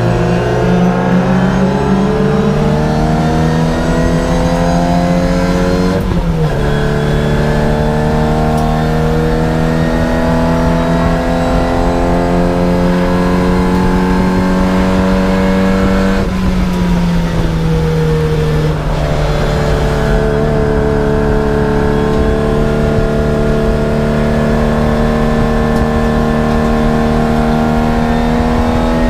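Race car engine heard from inside the cabin, pulling hard under full throttle, revs climbing steadily. It shifts up twice, about six and sixteen seconds in, the pitch dropping at each shift before climbing again.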